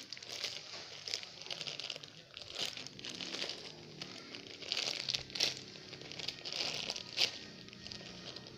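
Paper-and-tape squishy being squeezed and handled, crinkling irregularly with several sharper crackles.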